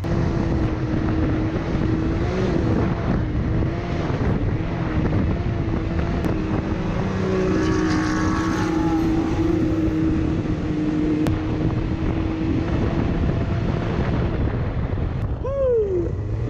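Can-Am side-by-side's engine running at a steady pitch while driving, with wind noise on the microphone. A brief falling tone near the end.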